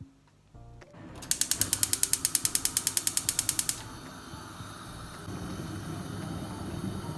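Gas hob's electric spark igniter clicking rapidly, about ten clicks a second, starting about a second in and lasting a couple of seconds. The burner then catches and the gas flame burns with a steady low rush.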